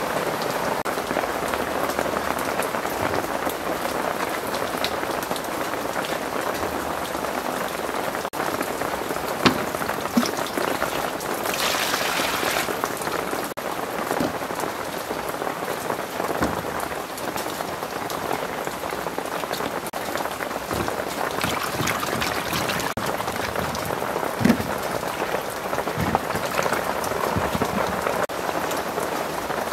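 Heavy rain falling steadily, with a few sharp knocks in between.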